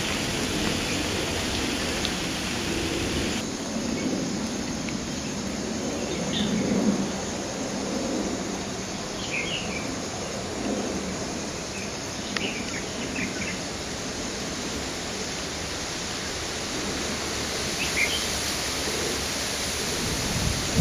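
Steady rain hiss with short bird chirps breaking through a few times. The hiss thins a little about three seconds in.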